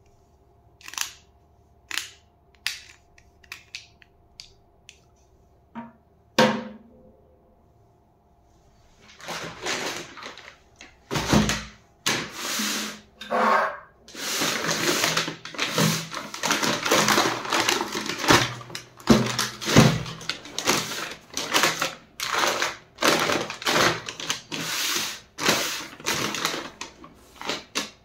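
A few light, scattered clicks, then from about nine seconds in a paper courier bag crinkling and rustling loudly as it is handled and pressed flat on a table.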